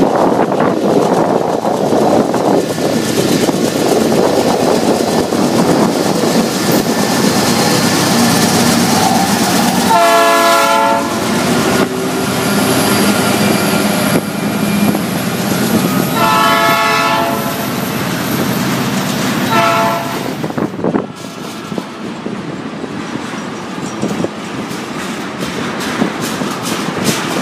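Diesel freight train passing close by, its locomotives and tank cars rumbling over the rails with a rhythmic clickety-clack and a thin high squeal. A train horn sounds three times: a long blast about ten seconds in, another long one about six seconds later, and a short one near twenty seconds.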